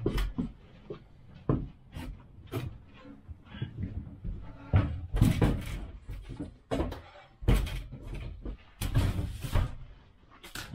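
A hand truck with a tall boxed piece of furniture being wheeled and unloaded on the plywood floor of a moving truck's cargo box: a run of irregular knocks and thumps, with longer bouts of scraping and rolling about halfway through and again near the end.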